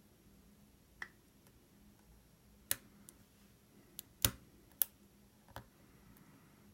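Lock pick and tension wrench working the pins of a 40 mm Yale padlock, giving about seven sharp, irregular metallic clicks. The loudest comes a little after four seconds in.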